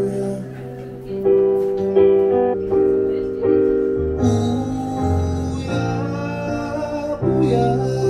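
A male voice sings a slow, gentle lullaby to keyboard accompaniment. Soft chords are struck in an even, unhurried pulse, each fading before the next.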